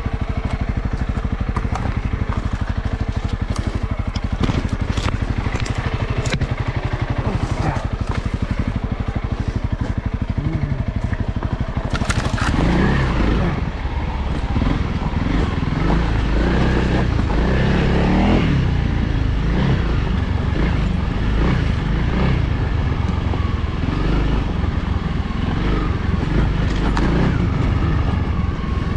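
Honda CRF300L's single-cylinder four-stroke engine running under way on a trail ride, with a few sharp clicks early on. From about twelve seconds in the engine grows louder and more uneven, as with changing throttle.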